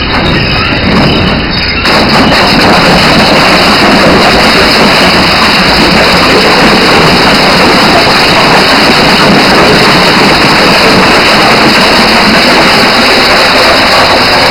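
Industrial crusher shredding refrigerator inner-liner plastic: a loud, dense grinding and crunching noise that jumps up about two seconds in, as the material reaches the cutters, and then holds steady.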